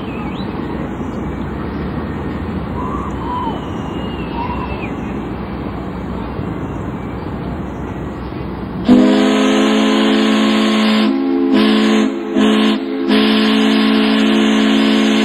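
A ship's steam whistle opens up about nine seconds in: a loud, many-toned blast with a hiss of steam over it, held for about six seconds with a couple of brief breaks. Before it there is only a steady noisy background with a few faint whistled glides.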